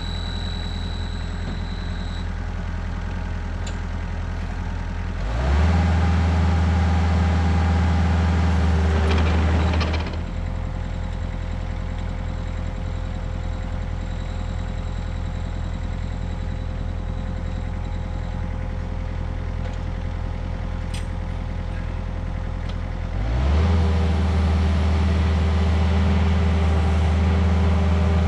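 Kubota excavator's diesel engine running at idle, revving up about five seconds in, dropping back to idle about five seconds later, and revving up again near the end.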